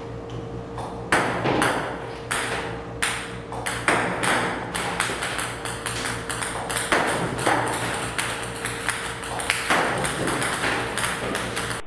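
Ping-pong balls fired by a table-tennis robot, clicking and bouncing on the table in quick, irregular hits, over a steady hum.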